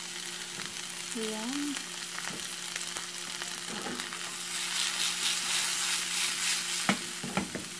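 Sliced tomatoes and bell pepper sizzling in oil in a frying pan as they are stirred. The sizzle grows louder a little past halfway, and there are a few sharp knocks near the end.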